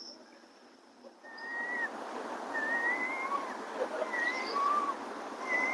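Birds calling in short whistled, wavering notes, several overlapping, over a steady rushing noise of surf or wind that comes in about a second in.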